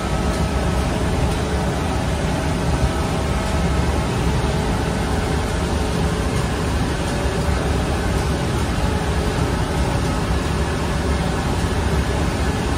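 Rotating-hearth bread oven running: a steady low rumble with a hiss over it, unbroken throughout.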